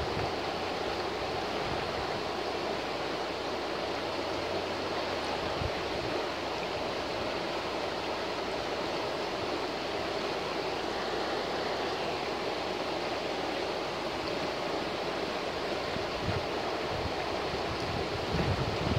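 A shallow forest river rushing over rocks in riffles, a steady, even rush of water. A few low thumps come near the end.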